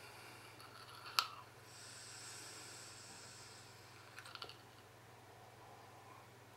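A click, then a faint high hiss as air is drawn through an iVape M1 e-cigarette atomiser for about two seconds. A few small clicks follow.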